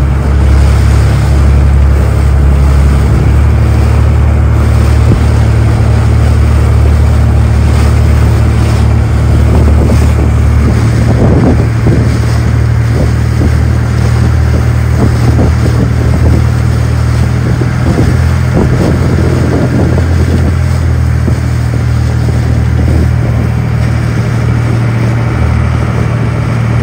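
Fishing boat's engine running steadily under way, a deep drone, with strong wind buffeting the microphone and water rushing past the hull.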